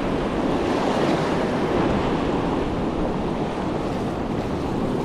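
Ocean surf washing up the beach, waves breaking and foam rushing over the sand in a steady wash, with wind buffeting the microphone.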